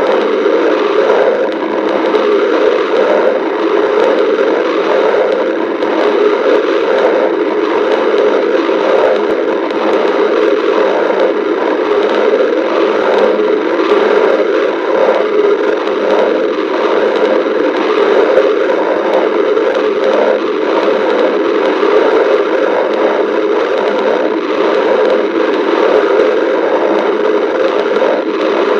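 A person's stomach growling and gurgling, heard as a loud, steady rumbling noise without breaks.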